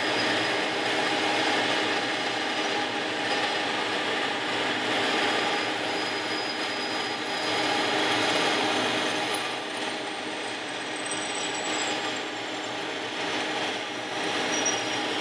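Benchtop bandsaw running and cutting lengthwise through an aluminium spar cap: a steady motor hum under the rasp of the blade in the metal.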